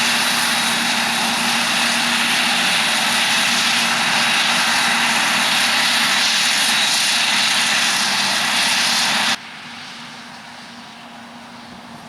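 Heavy farm machinery working maize, running steadily at high load with a steady whine over it. About nine seconds in, the sound cuts off abruptly and gives way to a much quieter engine sound.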